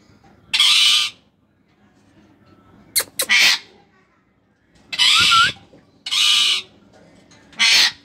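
African grey parrots giving harsh, hissing screeches: five loud bursts of about half a second each, spread over the eight seconds, with a couple of sharp clicks about three seconds in.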